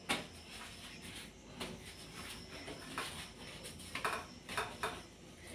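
Light clinks and taps from rotis being handled on a steel plate, a handful of short knocks spread out over a few seconds.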